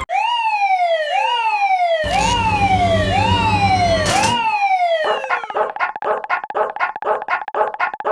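Cartoon level-crossing alarm sound effect: a synthesized siren-like wail that falls in pitch, repeated about five times, with a low beat joining under it about two seconds in. About five seconds in it switches to a fast-repeating electronic beep, about five a second.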